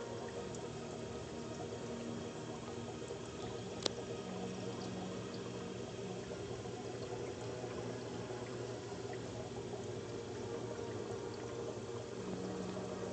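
Steady trickle and burble of aquarium water, with a low pump hum under it. One sharp click about four seconds in.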